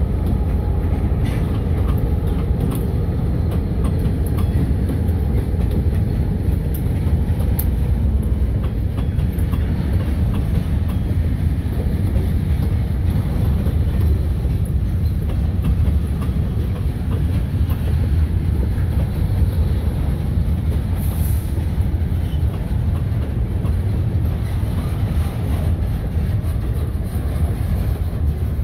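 Diesel freight train rolling past: the rumble of the locomotives, then a string of gondola cars going by, with faint clicking of wheels over the rail joints.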